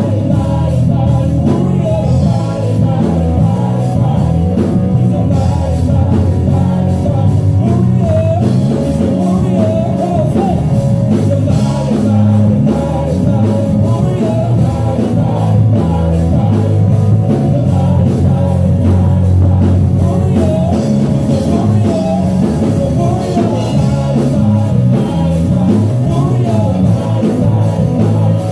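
Loud rock music with singing over a steady drum beat.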